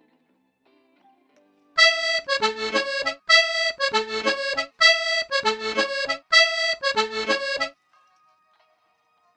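A short tune of clear pitched notes, the same phrase played four times: a held note, then a quick run of falling notes. It starts about two seconds in and stops near the end.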